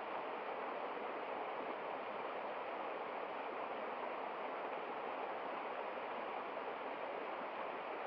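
Small waterfall running down a rock face: a steady, even rush of falling and splashing water.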